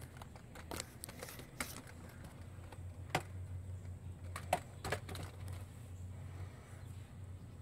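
Scattered sharp metallic clicks and clinks, about half a dozen, the loudest about three seconds in and about four and a half seconds in: parts and tools being handled while a rear drum brake is reassembled.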